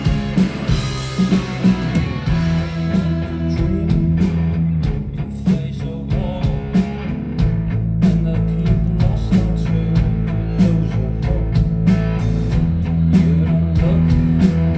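Live rock band playing an instrumental passage: electric guitars and bass over a steady drum-kit beat, with no vocals.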